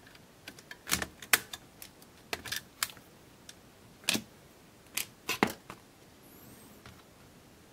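Sharp clicks and taps of a metal tool on a small eight-pin LA6355 chip as it is pulled from the Casio VL-1's circuit board to be replaced. About a dozen clicks come in a loose run, loudest at about one second in and again at about four and five seconds, then stop.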